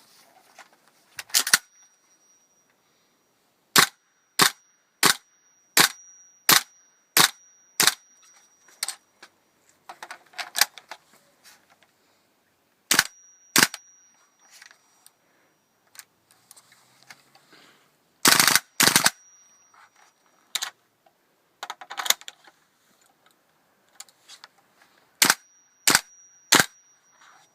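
WE M16A1 gas-blowback airsoft rifle firing: mostly single sharp cracks of the bolt cycling, spaced well under a second apart, with short rapid full-auto bursts, the longest about two-thirds of the way through. A thin high tone hangs between some of the shots.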